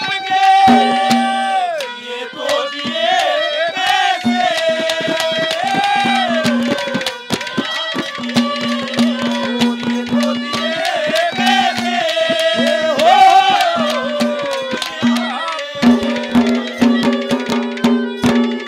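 Haryanvi ragni ensemble playing an instrumental passage: a hand drum beats many quick strokes under a sliding melody line and held drone notes.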